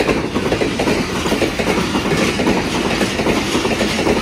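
Pakistan Railways passenger train passing close by: a continuous rumble and clatter of coach wheels running over the rails.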